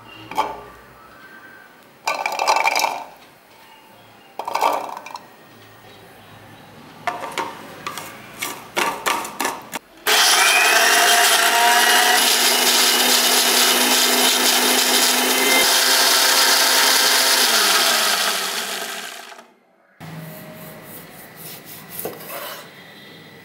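Electric mixer grinder running loud and steady for about nine seconds, grinding ginger, garlic and small onions to a fine paste, then winding down with a falling hum as it is switched off. Before it, pieces of ginger, garlic and onion are dropped into the plastic jar with several short knocks; near the end, a few soft sounds of a knife cutting a lemon.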